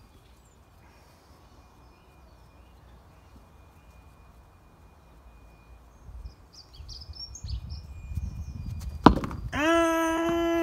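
Quiet garden air with faint birdsong. About nine seconds in comes a sharp knock as the tennis ball is played with a sweep shot of the plastic bat. Right after it a loud shout is held on one steady pitch for several seconds, an appeal for the batsman's wicket.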